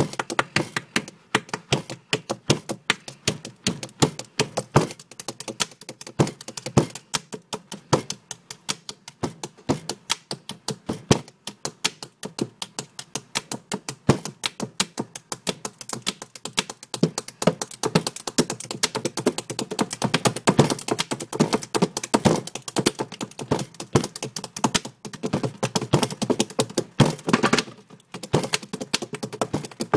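A drumbeat tapped and knocked out by hand on a hard surface: quick sharp taps, several a second, mixed with duller thumps in a steady busy rhythm. It grows fuller and louder about halfway through and stops briefly near the end.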